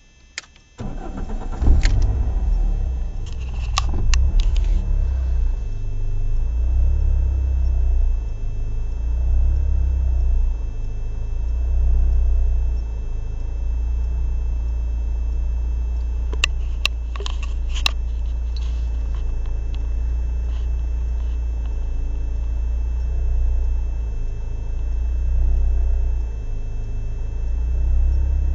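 BMW M42B18 1.8-litre four-cylinder engine starting about a second in, then idling roughly, its low drone swelling and dipping unevenly every few seconds: the persistent rough idle that the owner cannot trace, with no air leaks found and the idle control valve and MAF already cleaned. A few sharp metallic clicks come twice, a few seconds in and midway.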